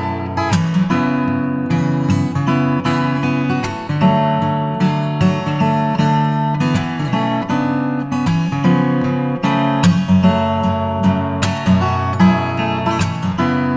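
Background music: acoustic guitar strumming and picking with a steady rhythm.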